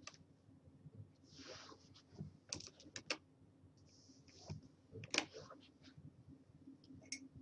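Faint, irregular clicks of computer keyboard keys being pressed, a dozen or so scattered taps with the most distinct ones about two and a half to three seconds in and again around five seconds, plus two short soft hisses.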